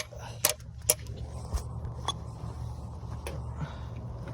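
A wrench clicking and clinking against the oil drain plug as it is tightened: about six sharp metallic clicks at uneven intervals, over a steady low hum.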